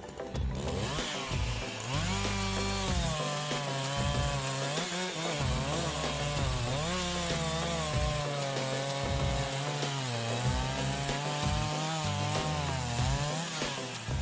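Chainsaw running and cutting wood, its engine pitch dipping and rising repeatedly through the cut.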